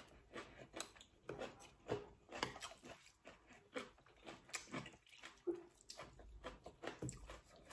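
A person chewing a mouthful of duck noodles close to the microphone: quiet, wet smacking and clicking mouth sounds, two or three a second.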